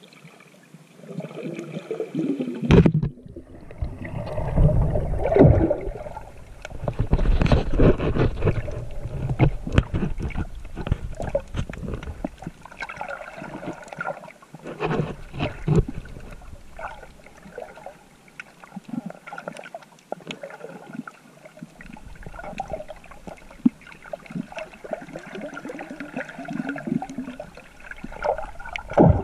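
Water sloshing and gurgling around a GoPro in its waterproof housing while swimming, with scattered clicks. It is loudest and rumbling from about three to twelve seconds in, then quieter.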